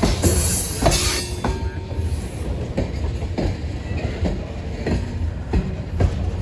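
Freight cars of a grain train rolling past, wheels clicking over rail joints over a steady low rumble, with a brief high wheel squeal in the first second or so.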